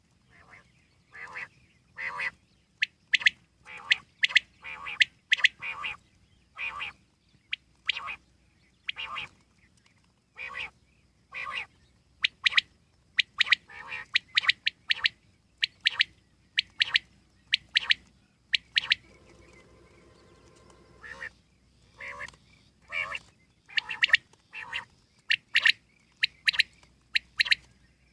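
Common quail calling over and over in short, sharp notes, often in quick groups. A faint steady buzz is heard briefly about two-thirds of the way through.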